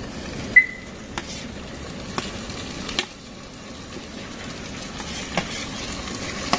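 Food frying in a steel pot over a stove burner with a steady sizzle, and a metal slotted ladle clinking and scraping against steel cookware several times. The loudest clink, about half a second in, rings briefly.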